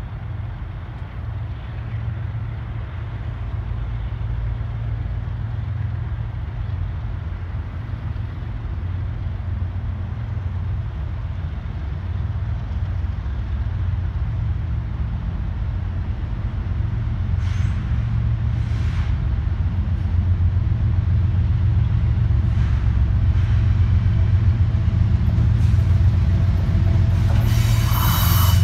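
GE Evolution-series diesel locomotives (a CSX ET44AH leading two ES44AHs) running at low speed as a long intermodal train approaches, a steady low rumble growing louder throughout. A few short hisses come about two-thirds through, and a louder, sharper sound cuts in just before the end.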